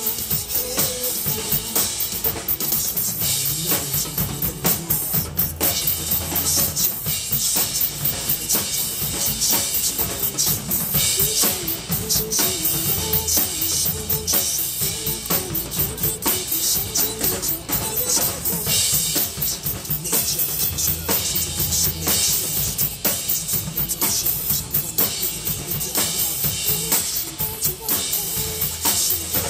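Drum kit played in a steady beat over a pop backing track, with kick drum, snare and cymbals.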